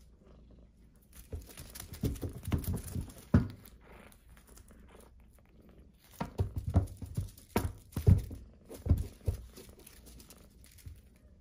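Soft thumps, scuffs and rustling as a Persian kitten pounces on and bats at a feather wand toy on a cloth-covered surface, in two flurries a few seconds apart.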